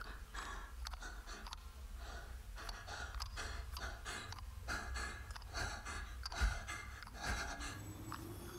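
A girl's rapid panting breaths, short and evenly paced at roughly two a second, over a low steady hum.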